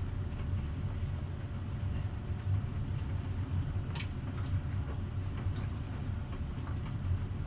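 Bosch tumble dryer running, its drum and motor giving a steady low hum, with a couple of faint clicks partway through.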